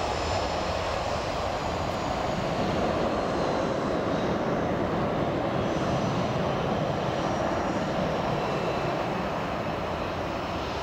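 Airbus A319 jet airliner's twin engines at takeoff thrust as it lifts off and climbs away, a steady, even engine noise. Faint high whining tones slide slightly downward partway through.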